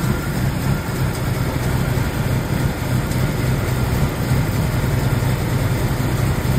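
BMW Z3 engine idling with a steady, throaty note.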